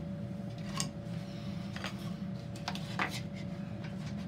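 A few light clicks and taps, as of small objects being handled on a workbench, over a steady low hum.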